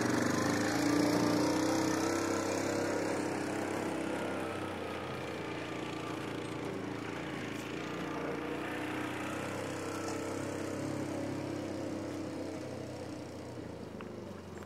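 Small utility vehicle's engine running as it drives off, a steady hum that fades slowly.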